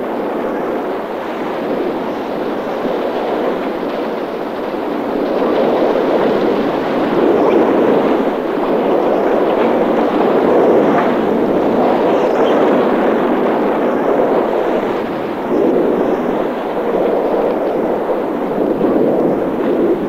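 Pack ice crushing and grinding against the steel hull of an Arktika-class nuclear icebreaker as it rams through: a continuous rough rumble that swells and eases several times.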